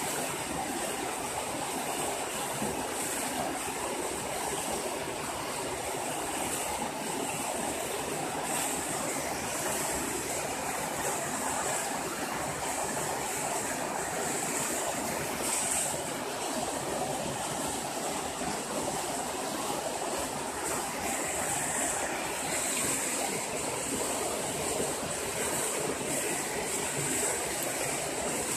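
Steady rush of flowing water, with a thin high hiss running above it.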